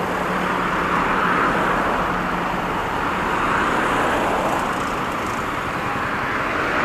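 Steady road traffic noise from passing vehicles, with a low engine hum in the first couple of seconds.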